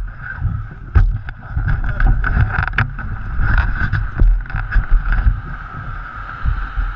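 Rumbling buffeting and scattered knocks on a helmet-mounted camera's microphone as the helmet is moved about, over a steady rushing noise.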